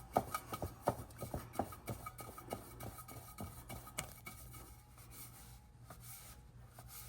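Small irregular clicks and scrapes of a spin-on oil filter being handled and turned onto its mount by hand, about two or three a second, fading out after four or five seconds, over a faint low hum.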